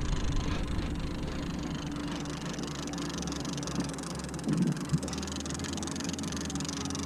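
Steady running of a boat's motor with a low hum and broad hiss, with a short louder knock about four and a half seconds in and a click just before five seconds.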